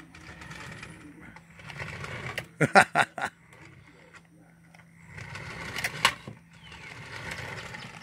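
Battery-powered toy remote-control car's small electric motor whining as it drives across a wooden deck, in two runs. Between them, about three seconds in, comes a quick cluster of loud knocks and rattles, and a single sharp knock follows about six seconds in.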